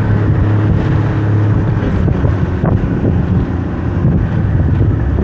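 A small water taxi's engine running under way, with wind buffeting the microphone and water rushing along the hull. The steady low hum turns rougher and less even about two seconds in.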